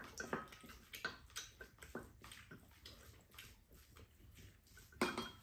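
Quiet eating sounds at a table: chewing and spoons and chopsticks tapping and scraping ceramic bowls in irregular small clicks, with a slightly louder clink near the end.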